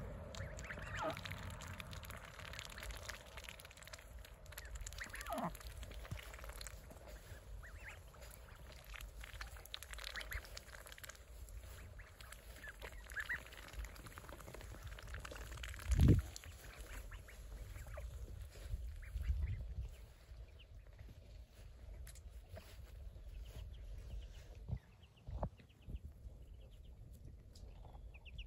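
A flock of young Saxony ducks quacking and calling now and then, some calls sliding down in pitch. One loud, dull thump comes about sixteen seconds in.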